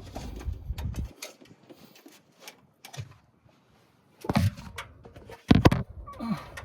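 Irregular clicks, knocks and rustling from work being handled, with two loud thumps in the second half.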